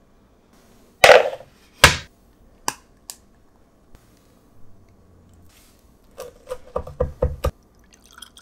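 Kitchen sounds: two loud knocks about a second apart, then a quick run of six or seven heavy chops, a knife cutting through a crisp flatbread onto a wooden cutting board.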